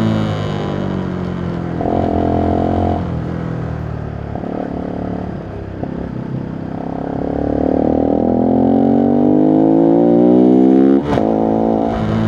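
Voge 125R's single-cylinder 125 cc engine under way, revs climbing steadily for several seconds, then dropping suddenly near the end at an upshift before pulling again.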